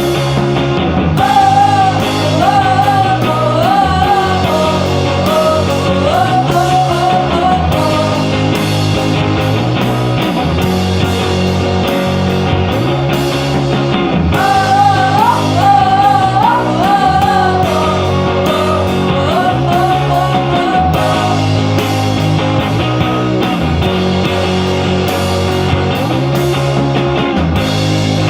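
Rock music soundtrack: a song with electric guitars, bass and drums, with a lead melody line that comes in twice, about a second and a half in and again about halfway through.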